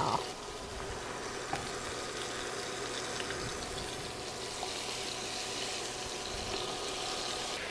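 Ground-beef patties sizzling steadily in hot oil in a skillet, just after going into the pan.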